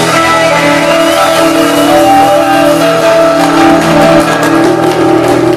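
Live rock band holding a long sustained chord: distorted electric guitar bending a note upward about two seconds in over held keyboard and bass notes, with drum and cymbal hits near the end.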